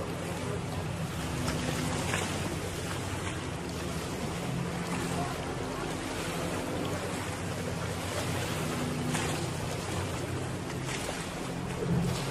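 A boat motor hums steadily at low speed, with wind on the microphone over it.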